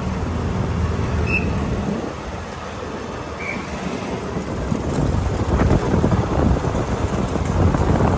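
Open golf cart rolling along a paved street: a low, steady rumble from the cart and its tyres. About five seconds in, gusty wind buffeting on the microphone comes in and becomes the loudest sound.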